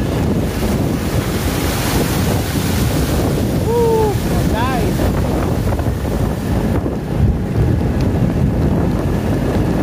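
Strong wind buffeting the microphone in a heavy rainstorm: a loud, steady rushing noise. About four seconds in there are two brief pitched sounds that bend up and down.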